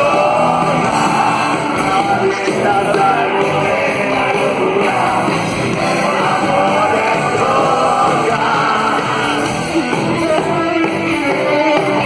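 Rock band playing live, with loud electric guitars, drums and bass and voices singing or shouting over them, as recorded from the audience.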